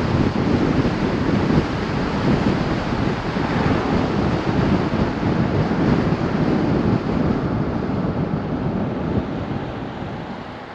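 Wind buffeting the microphone, mixed with tyre and road noise from a vehicle driving on a multi-lane road. It makes a steady, heavy rushing noise that dies away near the end.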